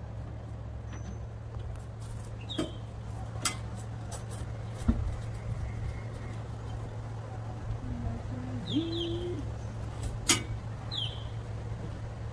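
Aluminium ladder being climbed: scattered knocks and clicks of boots on the metal rungs, the sharpest about ten seconds in, over a steady low hum. A few short high bird chirps.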